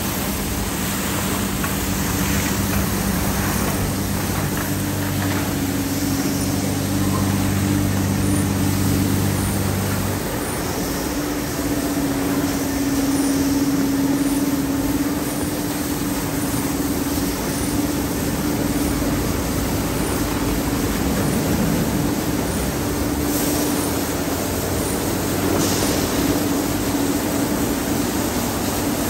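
Automatic tunnel car wash at work: Holz cloth wrap brushes, top brushes and side washers spinning and scrubbing a car under water spray, over a steady motor and pump hum. Part of the low hum stops about ten seconds in as one unit shuts off, while the rest runs on.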